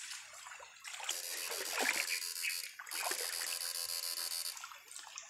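High-pitched, rapidly pulsing electrical buzz from a homemade electrofishing rig, switched on twice for about a second and a half each with a short break between, over water splashing around the wading men's legs.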